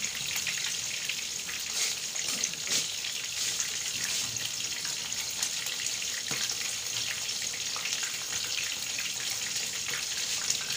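A piece of dalagang bukid fish (the tail) frying in hot oil in a frying pan: a steady sizzle with scattered crackles and pops.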